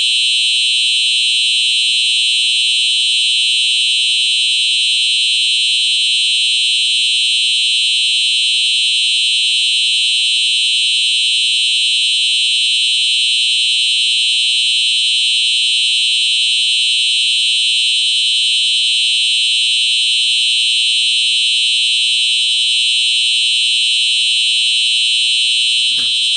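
Simplex 4901-9822 fire alarm sounding a test activation: one steady, loud, high-pitched tone held without a break.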